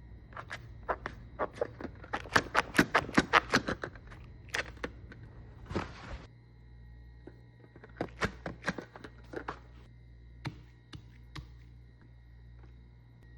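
Wax coating on a homemade squishy cracking as it is squeezed: sharp crackling snaps in quick clusters, a brief rustle about six seconds in, then another run of cracks.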